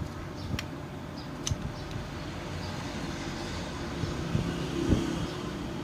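A few light clicks and low knocks of a metal vape box mod being worked apart by hand with a screwdriver, over a steady background hum.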